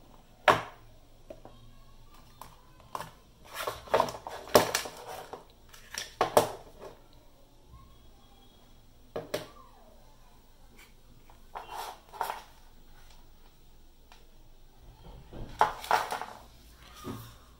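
Handling noises of a small RC battery charger and its cardboard box being picked up, turned over and set down on a tabletop: scattered taps and knocks with short bursts of rustling.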